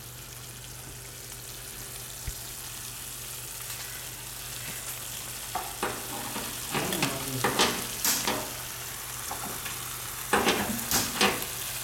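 Kingfish in masala gravy sizzling steadily in a frying pan on a gas stove. Sharp clinks and knocks of steel cookware being handled on the stove come in two clusters, about halfway through and again near the end.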